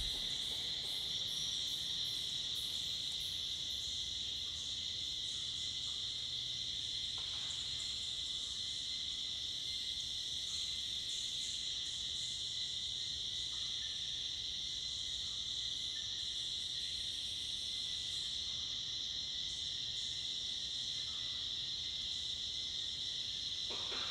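Tropical forest insect chorus at dusk: a steady, unbroken high-pitched drone, with a fainter, lower steady whine beneath it.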